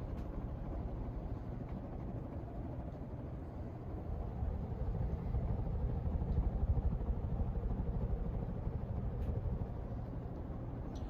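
1983 Hunter Original ceiling fan running on high speed: a steady low hum with a rush of moving air. It grows louder about four seconds in and eases back near the end.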